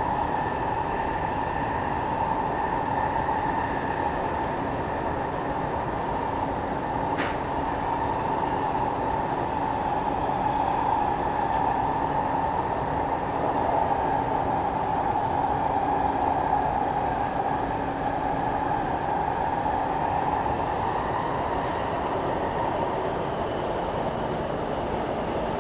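Kaohsiung MRT Red Line metro train running through its underground section, heard from inside the car: a steady rumble of wheels on track with a constant hum from the running gear, and a few faint clicks.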